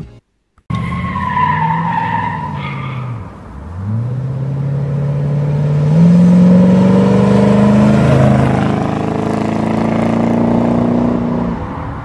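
Classic C3 Corvette's V8 engine running: after a short gap the engine note falls, then from about four seconds in it climbs steadily as the car accelerates, loudest a little past the middle.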